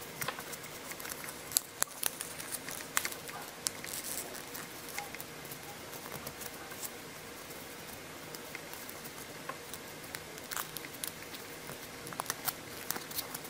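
Small plastic toy pieces and packaging being handled: scattered light clicks and taps with faint rustling and crinkling.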